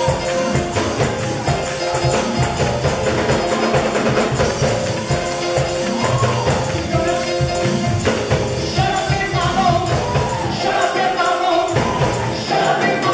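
Gospel praise music with a tambourine shaking in a steady rhythm and voices singing, over congregational hand clapping.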